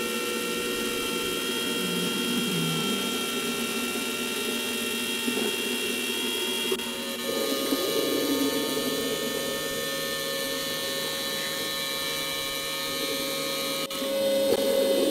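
Electric router motor running at a steady speed with a whine, driving a belt-driven kart water pump, with water pouring from the pump's outlet hose into a bucket. The sound changes abruptly about seven seconds in and again near the end as the test speed is stepped up.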